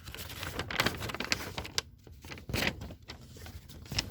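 Paper and cardboard being handled: irregular rustling with a few knocks, the loudest about a second in and again around two and a half seconds in.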